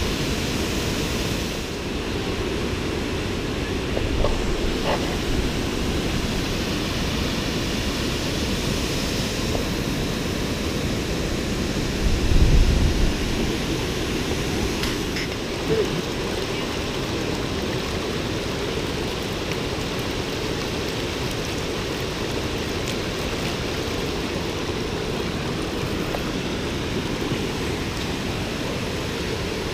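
Waterfall: a steady rush of falling water, with a brief low rumble about twelve seconds in.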